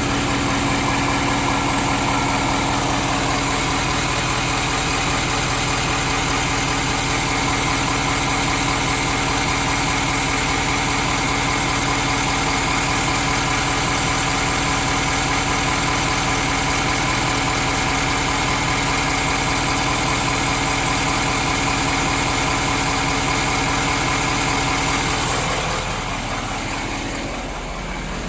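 Ford 6.7L Powerstroke V8 turbo-diesel in a 2017 F250 idling warm, with an engine knock that is less obvious now that it has warmed up. The sound drops in level and loses its top end near the end.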